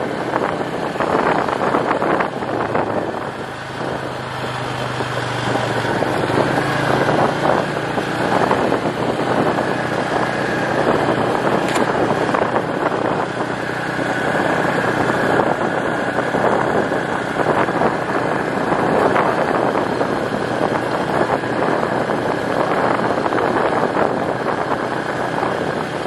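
Engine of an off-road vehicle running as it drives slowly along a gravel road, mixed with steady tyre-on-gravel and rattling noise.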